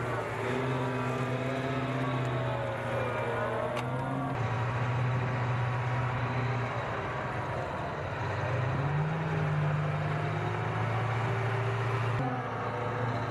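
M2A3 Bradley fighting vehicle's diesel engine running as the tracked vehicle drives across a steel scissor bridge, the engine note rising and falling with throttle and climbing about two-thirds of the way in. The sound changes abruptly twice.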